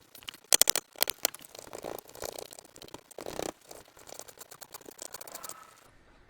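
A wood chisel scraping and clicking as it pares the corners out of a rabbet cut in a wooden board, in a run of short, irregular strokes.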